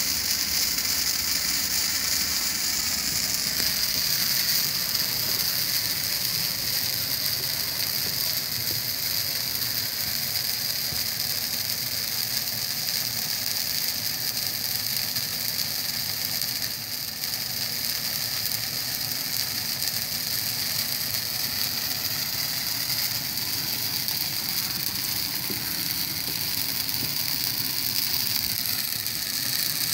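A Christmas tree burning in a tall blaze, its needles and branches crackling and popping steadily.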